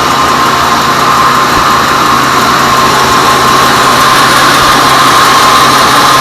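Sawmill bandsaw running and sawing through teak wood: a loud, steady noise with a constant high hum.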